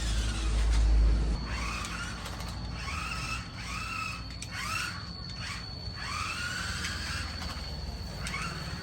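Battery-powered big-wheel off-road RC toy car's electric motors whining in about six short bursts, each rising quickly in pitch and then holding briefly. A low rumble fills the first second and a half.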